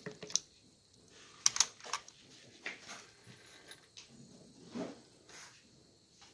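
Scattered light clicks and knocks, a few at a time with quiet gaps between, from handling an AK-47 rifle while clearing a jammed, torn cartridge case from the chamber.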